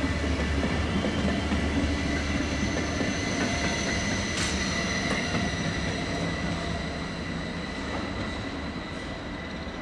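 SBB double-deck S-Bahn electric train rolling away over curving station tracks: a low wheel rumble and a steady high-pitched wheel squeal, fading gradually as it recedes. A single click of the wheels crossing a rail joint comes about four and a half seconds in.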